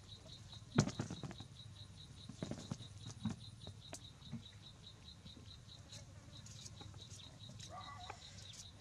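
An insect chirping steadily in a fast even pulse, about four or five chirps a second, with scattered soft taps and rustles as a baby macaque handles fruit and moves over a woven plastic mat; the sharpest tap comes about a second in.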